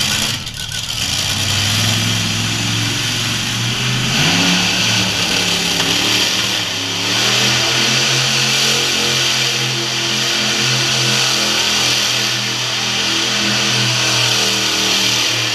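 Monster truck engine revving up about four seconds in, then held at high revs while the truck spins tight circles.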